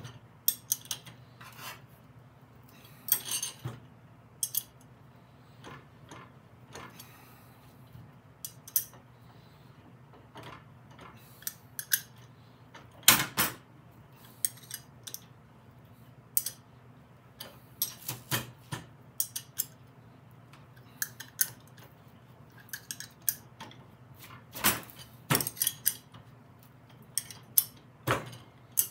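Irregular metallic clicks and clinks of a wrench working the bolts on a Snapper mower's drivetrain gear cover, with the loudest clank about halfway through. A faint steady low hum runs underneath.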